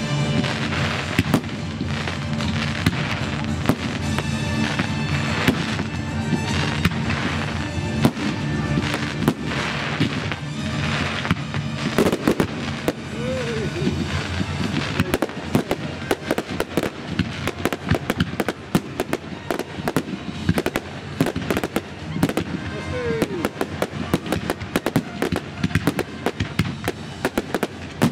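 Fireworks finale: a continuous barrage of bangs and crackling. It thickens into rapid crackle, many reports a second, from about halfway through.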